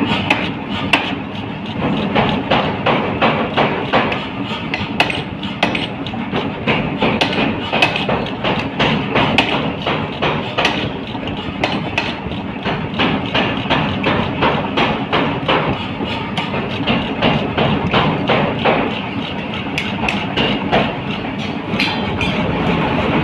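Mechanical power hammer striking hot steel in rapid, steady repeated blows while forging a double-bit axe head.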